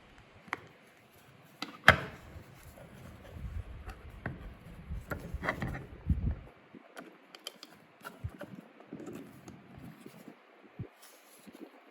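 Hands handling boxes and packaging: scattered clicks, taps and rubbing, with a sharp knock about two seconds in and a low handling rumble for a few seconds after.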